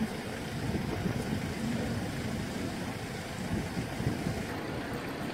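A bus engine idling: a steady low rumble.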